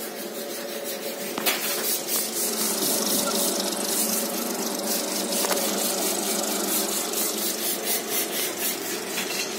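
Electric groundnut plucking machine running: a steady motor hum with a fast, even rattle from the rotating drum as groundnut plants are swirled inside to strip off the pods. Two small knocks about a second and a half in and again near the middle.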